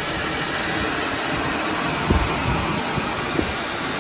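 Garden hose running, a steady hiss of spraying water, turned on to test a freshly welded aluminium boat hull for leaks. Two light knocks come about two and three and a half seconds in.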